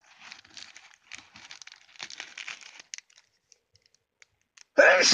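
Clear plastic packaging around a camera lens filter crinkling as it is handled, then near the end a sudden loud sneeze, put down to allergies.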